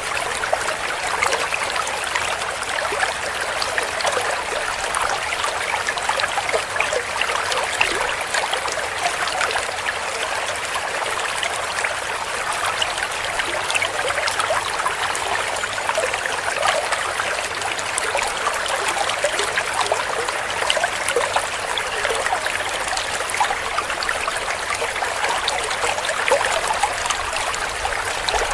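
Stream water flowing and gurgling steadily, a continuous rush with a dense patter of small splashes.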